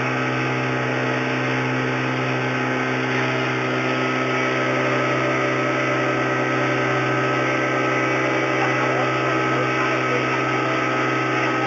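A boat's engine running steadily, heard on board: an unchanging drone with a strong low hum.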